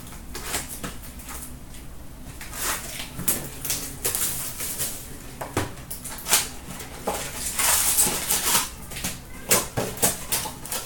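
Hockey card packs and cards handled and opened by hand: irregular rustling and crackling of wrappers and card stock, with light clicks and taps.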